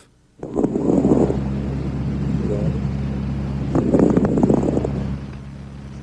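Lung sounds recorded through a stethoscope: two breaths, each with a cluster of very brief crackling clicks, over a steady low hum. These are fine crackles, a discontinuous added breath sound.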